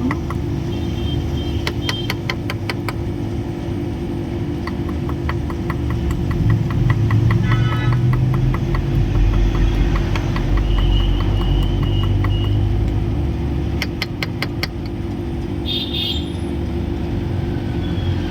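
A motor-driven machine running steadily with a low hum, louder through the middle. Rapid trains of clicks come twice, near the start and again near the end.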